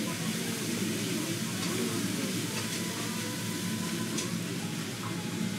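Restaurant room noise: a steady hiss with a low murmur underneath, and a few light clicks about one and a half, two and a half and four seconds in.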